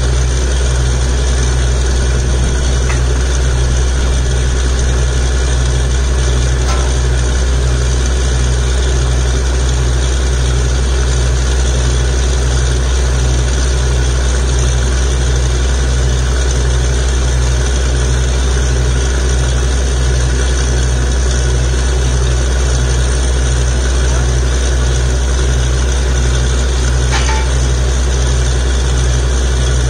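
Truck-mounted borewell drilling rig's engine running loud and steady, with an even low pulse repeating about one and a half times a second.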